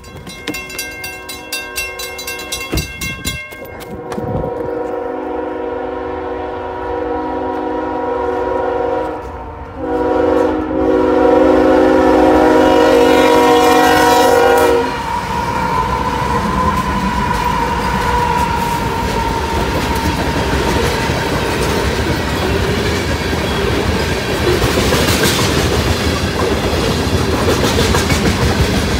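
Railroad crossing bells clanging, then a Union Pacific diesel locomotive's horn sounding a long chord, broken once briefly and loudest in its second part as the train reaches the crossing. From about fifteen seconds in, the locomotives and a string of tank cars roll past with steady wheel rumble and clickety-clack.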